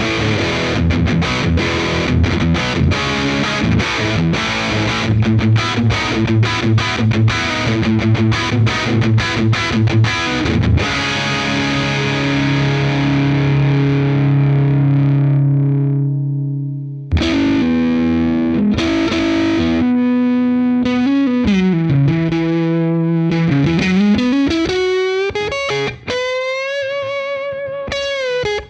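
Electric guitar played through a Catalinbread Dirty Little Secret MkIII overdrive pedal, with a gritty distorted tone. A fast, rhythmic picked riff runs for about ten seconds, then a chord rings out and fades. After a short gap comes a slower phrase with string bends and vibrato.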